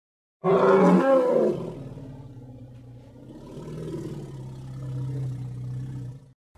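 Mammoth call sound effect: a loud roar breaks in about half a second in, then drops into a long, lower, steady-pitched call that swells again and cuts off suddenly near the end.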